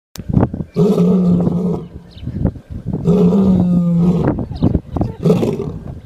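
A sleeping lion snoring very loudly: three long rasping snores with a steady low buzz, about two seconds apart, with quieter breaths between them.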